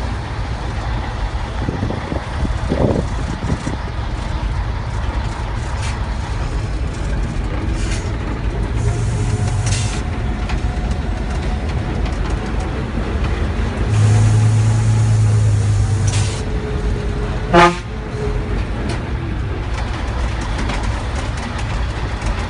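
Scania 111 truck's 11-litre straight-six diesel engine running under way, heard from inside the cab as a steady low rumble. It grows louder in two stretches, briefly around 9 seconds in and for about two seconds around 14 seconds in. A short, sharp sound falling in pitch comes near 17 seconds in.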